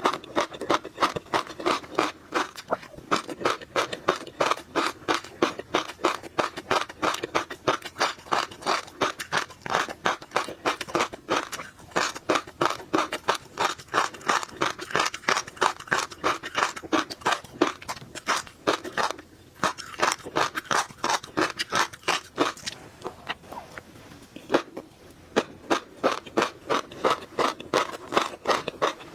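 Close-miked chewing of tobiko (flying fish roe), the tiny eggs popping and crunching between the teeth in a rapid run of crisp clicks, with a couple of short pauses about two-thirds of the way through.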